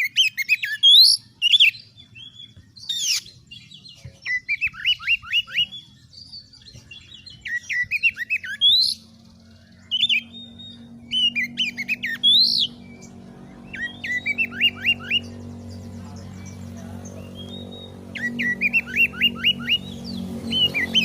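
Oriental magpie-robin (kacer) singing: loud high whistles mixed with quick runs of four to six falling chirps, repeated in phrases every few seconds, with harsh squawking notes. A steady low hum comes in about halfway through and stays under the song.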